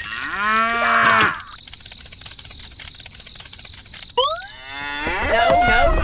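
A long, low animal call lasting just over a second, dropping away at its end. About four seconds in there is a quick rising glide, and near the end more wavering pitched calls begin.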